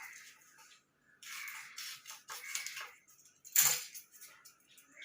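Hands working thermocol foam pieces and double-sided tape: irregular rustling and scraping, with one sharper, louder crackle about three and a half seconds in.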